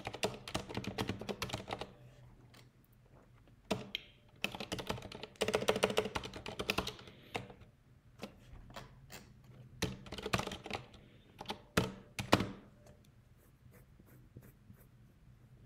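Typing on a computer keyboard: quick runs of key clicks in several bursts with short pauses between, thinning to scattered taps near the end.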